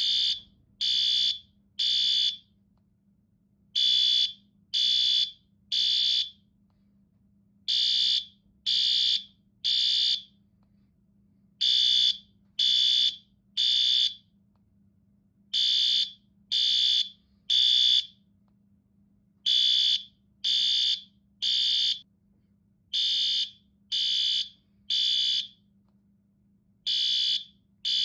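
Fire alarm sounding the temporal-three evacuation pattern: three high-pitched beeps about a second apart, then a short pause, repeating over and over.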